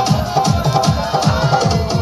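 Loud Hindi dance song with a fast, steady drum beat under the melody.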